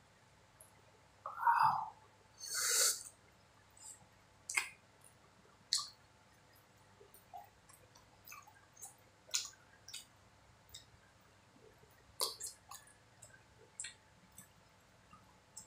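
Close-up eating sounds of sweet martabak: small wet mouth clicks and smacks of chewing, scattered through. The loudest sounds are a short hoot-like hum about a second and a half in and a brief hissing breath just after it.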